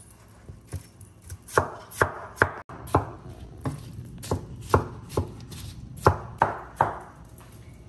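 Knife chopping watermelon into small pieces: about fourteen sharp knocks at an uneven pace, roughly two a second.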